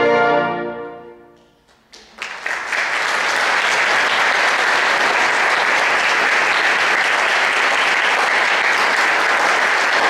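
A symphonic wind band's final chord dies away over about a second and a half. After a brief hush, audience applause begins with a few scattered claps and within a second becomes full, steady clapping.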